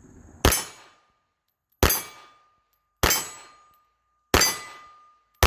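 Five shots from a Taurus Spectrum .380 ACP micro pistol, evenly spaced about 1.3 seconds apart, each hitting a steel gong target. The gong clangs and keeps ringing with a steady tone between shots.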